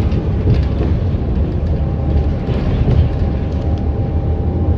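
Bus in motion heard from inside: a steady engine and road rumble with a faint steady whine running through it.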